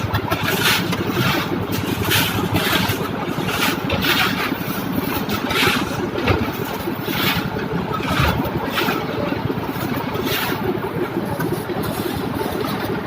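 A motor or engine running steadily, with a short hissing or scraping sound repeating a little more than once a second.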